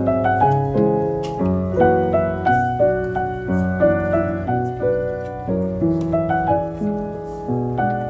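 Background piano music: a flowing melody of struck notes over held bass notes.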